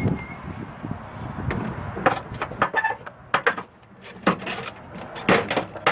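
Irregular sharp metal knocks and clanks, about a dozen strikes, from a copper part being hit off an air conditioner radiator and handled.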